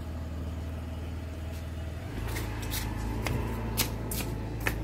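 Footsteps on brick paving, sharp clicks about twice a second starting about two seconds in, over a steady low rumble.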